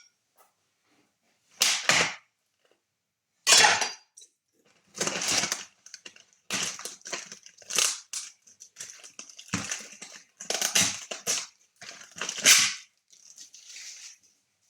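Plastic food packaging crinkling and crackling in repeated bursts as a packet of meatballs is wrestled and torn open.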